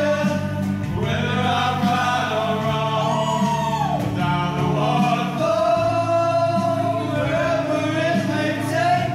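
A group of men singing together over instrumental music with a steady bass line.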